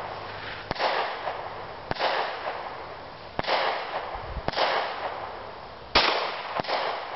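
A string of gunshots with echoing tails, about one every second or so at uneven spacing. The loudest, about six seconds in, is a handgun shot firing an FTX Critical Defense hollow-point round into ballistics gel.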